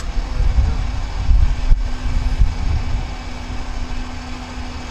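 A truck engine running with a steady hum and low rumble; a loud hiss-like mechanical noise starts suddenly at the start, and there is a single knock about two seconds in.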